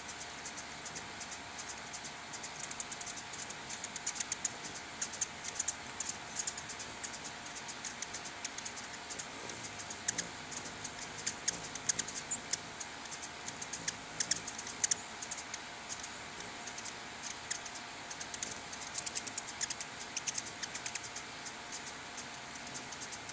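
Ruby-throated hummingbirds calling: rapid high-pitched chips and ticks in irregular bunches, over a steady hiss.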